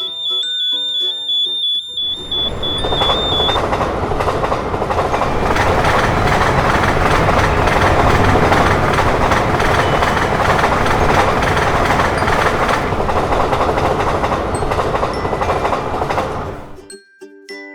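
A level-crossing warning alarm gives a high alternating two-tone beep over music. About two seconds in, a passing train takes over: a loud, steady noise with wheels clattering over the rail joints. It cuts off suddenly near the end as the music comes back.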